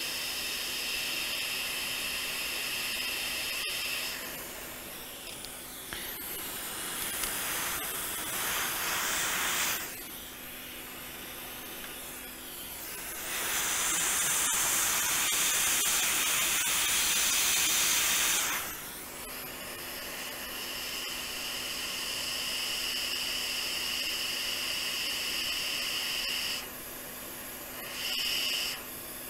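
Quick 861DW hot air rework station blowing on a logic board to heat two resistors for replacement. It makes a steady hiss with a whine, which shifts in pitch and loudness several times as the airflow changes. The hiss is loudest and highest for about five seconds in the middle.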